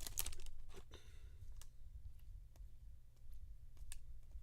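Trading cards handled and flipped through one by one, giving scattered light clicks over a steady low hum.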